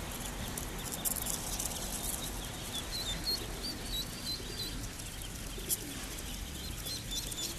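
A crate of laying-duck ducklings peeping: many short, high peeps repeating over and over.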